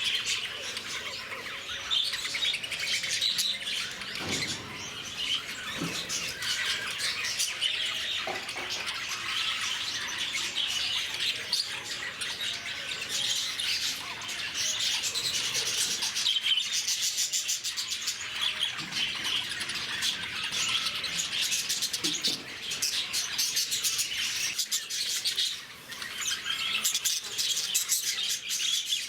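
A flock of lovebirds chattering: many shrill chirps and squawks overlapping without a break.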